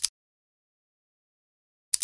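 Two mouse clicks about two seconds apart, each a quick double tick of button press and release, with dead silence between them.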